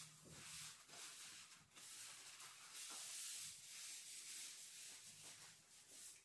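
Paper towel rubbing and wiping over wet fur and a wet tabletop, in repeated soft scrubbing strokes.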